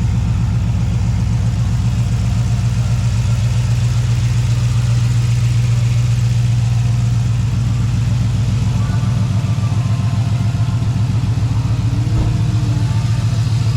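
2003 GMC Yukon's V8 engine idling steadily, breathing through a newly installed S&B cold-air intake with a dry filter.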